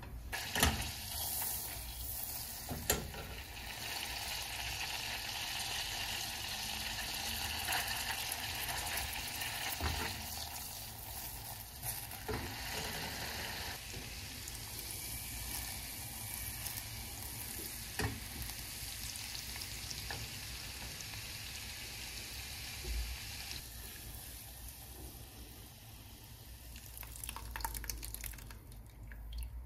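Butter sizzling as it melts in a pan, with a spoon clicking against the pan now and then as it is stirred. The sizzle eases down somewhat near the end.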